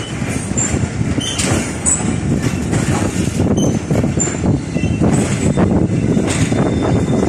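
Passenger train running slowly into a station, heard from an open coach door: a steady rumble and clatter of wheels on track, with short high squeaks now and then.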